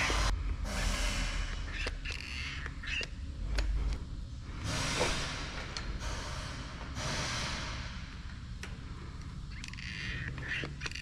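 Hand lever grease gun being pumped into a grease fitting on a car-wash brush bearing: clicking lever strokes with short squelching, hissing squirts, over a low steady rumble.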